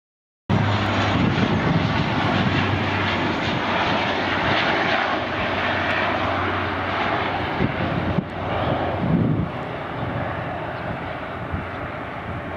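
De Havilland Canada Dash 8-400 (DHC-8-402Q) turboprop airliner running loud as it passes, its Pratt & Whitney PW150A engines and propellers making a dense rush with a steady low drone underneath. The sound cuts in suddenly about half a second in and grows quieter in the second half.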